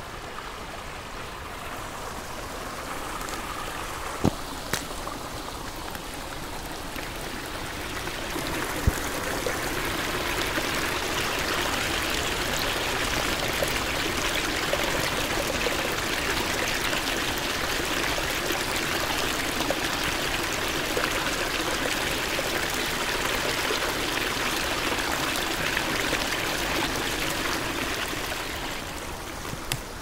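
Rainforest ambience sound effect: a steady rush of water that swells about a third of the way in and eases off near the end. A few sharp ticks sound in the first third.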